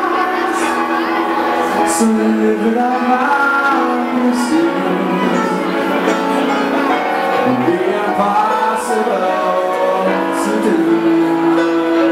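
Loud music with singing, a held, gliding sung melody over instruments.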